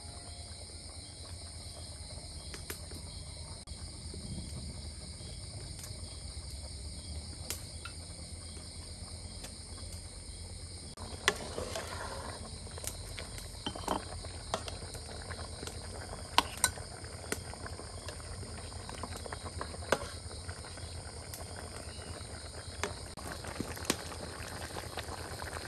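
Crickets and other night insects trilling steadily over a low hum. From about eleven seconds in, scattered short clicks and knocks join in.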